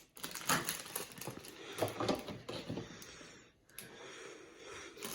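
Plastic wrapping on a candy apple crinkling and rustling as it is handled, with small clicks and knocks, pausing briefly about three and a half seconds in.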